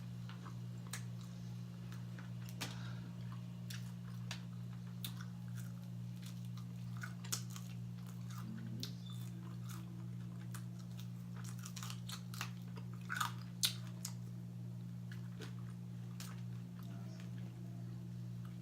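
Close-up chewing and biting of crispy fried food, with irregular sharp crunches, over a steady low hum.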